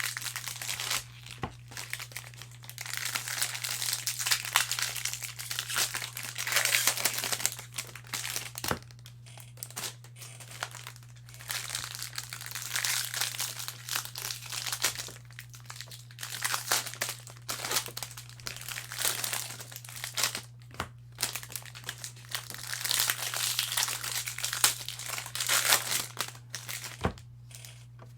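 Plastic foil wrappers of Bowman Jumbo baseball card packs being crinkled and torn open by hand, in irregular bursts, with a few sharp clicks. A steady low hum runs underneath.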